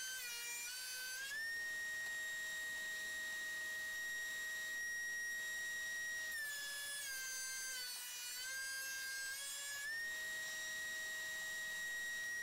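DeWalt thickness planer running, heard as a faint, steady high whine whose pitch sags twice as boards pass through the cutterhead under load and then recovers.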